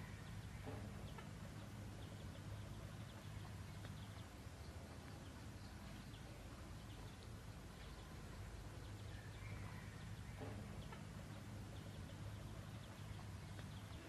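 Faint, occasional soft clucks from a red junglefowl rooster, over a steady low hum.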